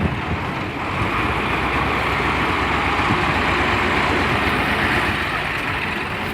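A vehicle's engine running steadily, with an even rushing noise.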